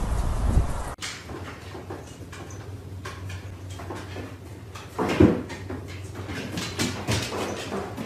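A dog coming down wooden stairs carrying a pillow: soft knocks of paws on the treads and rustling of the pillow, with one louder thump about five seconds in. Before that, about a second of wind noise cuts off abruptly.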